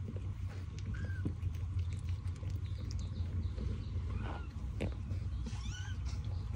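Kitten giving a few short, high mews, about a second in, around four seconds and near the end, over a steady low hum.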